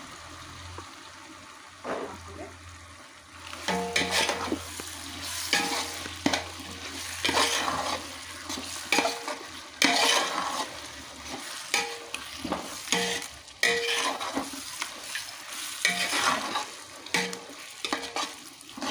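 Marinated chicken being stirred into a large pot of fried onion-tomato masala: a spoon clanks and scrapes against the pot again and again, starting a few seconds in, over the sizzle of frying.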